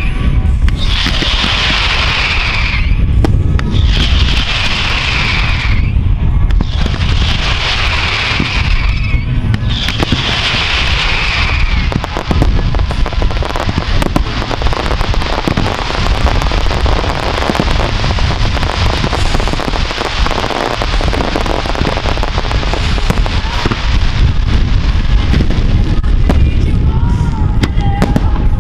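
Fireworks display firing a dense barrage of shells and comets: continuous bangs and crackling bursts over a heavy rumble. For the first dozen seconds a falling whistle-like sweep repeats about every two seconds over the bangs.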